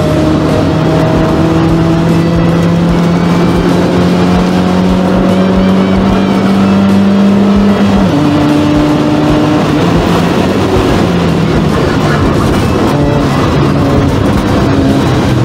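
Nissan Sentra B13's four-cylinder engine under load, heard from inside the cabin: its pitch rises slowly for about eight seconds, drops sharply at an upshift, then pulls again.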